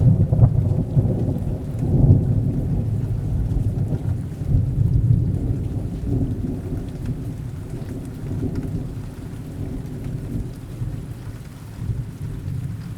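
Thunder rumbling over steady rain, loudest in the first few seconds and slowly fading.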